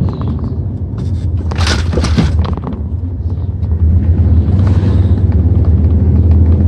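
Pickup truck driving, its steady low engine and road rumble heard from inside the cab, with a brief burst of higher noise about two seconds in.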